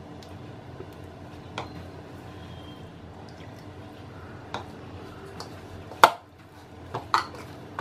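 Hands mixing flour, ghee and a little water into a crumbly dough in a ceramic bowl, with soft squishing. A few sharp knocks come on the bowl: the loudest about six seconds in, and two more about a second later.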